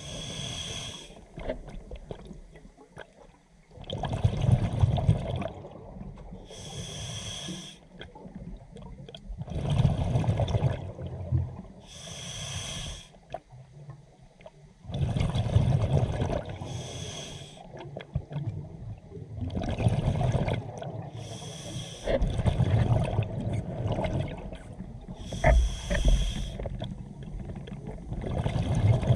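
A scuba diver breathing through an open-circuit regulator underwater, heard through the camera housing. Each breath is a short hiss of the inhale, followed by a longer low rumble of exhaled bubbles, repeating about every five seconds.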